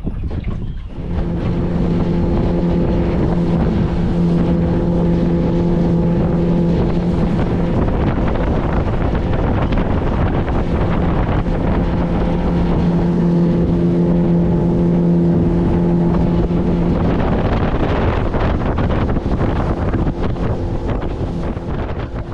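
Boat outboard motor running steadily underway, a constant engine hum under heavy wind buffeting the microphone. From about 17 seconds in the engine note fades and the wind noise takes over.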